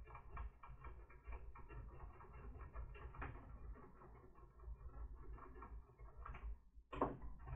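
Faint, rapid small clicks and scratches, several a second, from hands and tools working on a laptop's plastic case and parts, with one louder click near the end.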